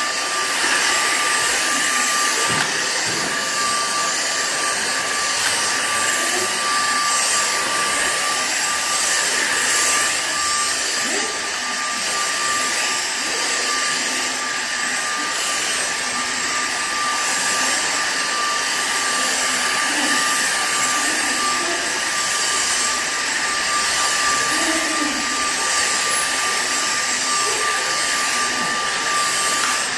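Cordless stick vacuum cleaner running steadily while it is pushed back and forth over a rubber floor mat, with a constant high whine from its motor over the rush of air.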